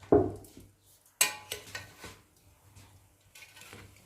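Metal cooking pot being opened after the rice has steamed on dum: a dull knock, then a sharp metallic clank of the lid about a second in, followed by a few lighter clinks of metal on metal.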